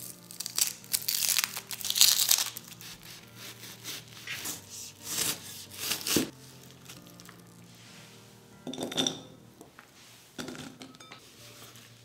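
A peeled onion being handled and cut on a bamboo cutting board: loud crisp crackling as its layers are broken at first, then a chef's knife chopping through it and knocking on the board, with one hard knock about six seconds in. Two short rustles of diced onion being gathered come later, over soft background music.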